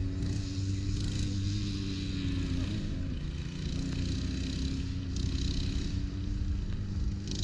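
A steady mechanical hum with a held low tone that wavers and drops out briefly about three seconds in.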